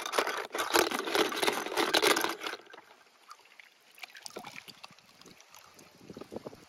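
Water splashing and sloshing in a plastic tub as small toy cars are moved through it by hand. It is loud for the first two and a half seconds, then settles to fainter, scattered small splashes.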